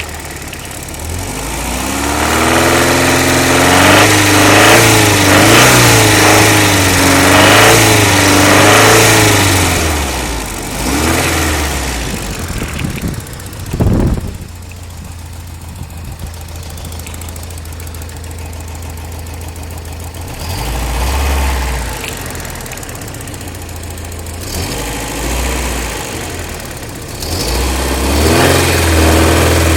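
Toyota 22RE 2.4-litre four-cylinder engine idling and being revved up and down several times, mostly in the first third and briefly twice near the end, with the marble-like rattle it is being checked for. One sharp knock about halfway through.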